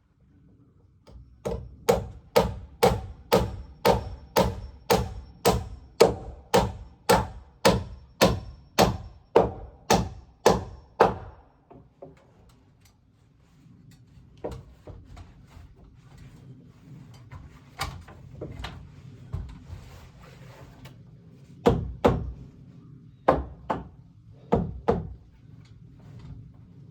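Heavy knocks on wood, like hammer blows: a fast even run of about two dozen strikes, a little over two a second, then a pause with scattered lighter knocks, and a few more hard blows near the end.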